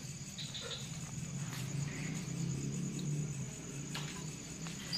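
Crickets chirping steadily in a fast, even pulse, over a low hum that swells in the middle, with a few faint knocks.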